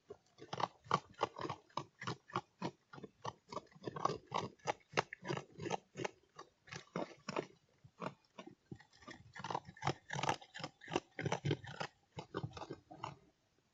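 An animal chewing and crunching food in rapid strokes, about three or four a second, broken by short pauses.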